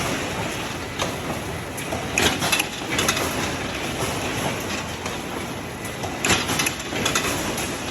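Net-making machine knotting monofilament fishing net, running with a dense, continuous clatter and irregular sharper clacks.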